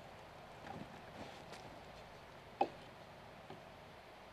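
A single light knock of a hand tool against the timber a little over halfway through, over a faint steady background.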